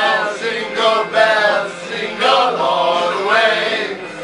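A group of men singing together, several voices at once.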